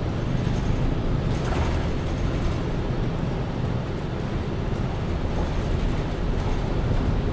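MAN Lion's City Ü city bus's diesel engine and Voith automatic gearbox running, heard from inside the bus: a steady low drone.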